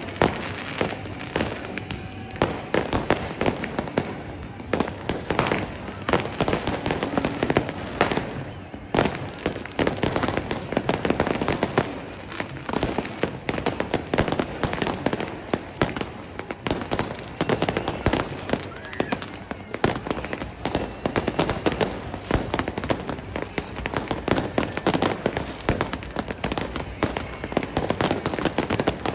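Fireworks going off in rapid, continuous succession: many sharp bangs and crackles overlapping, with voices mixed in.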